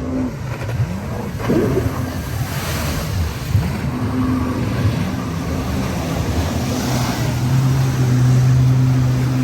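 Outdoor waterfront ambience: wind and water noise with a steady low engine hum that grows louder about seven seconds in.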